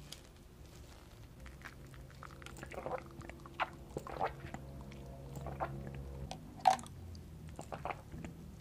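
Soft, close-miked mouth sounds of sipping through a straw: wet smacks and lip clicks, scattered every second or so, one louder click about two thirds in. A faint low hum lies underneath and stops shortly before the loudest click.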